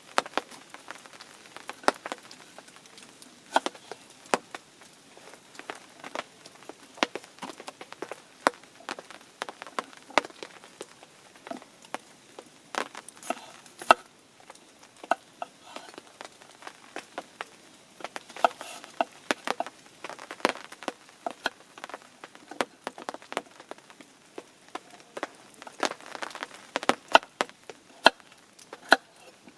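Knife cutting stew ingredients on a cutting board: irregular sharp taps and clicks, some in quick clusters.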